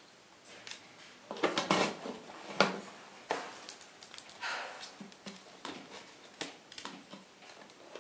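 Goffin's cockatoo handling a small wooden stick and a plastic straw with its beak and foot: scattered light clicks and taps at uneven intervals.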